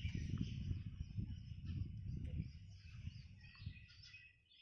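Wind buffeting the microphone in a fluttering low rumble that eases off near the end, with insects chirring steadily in the background.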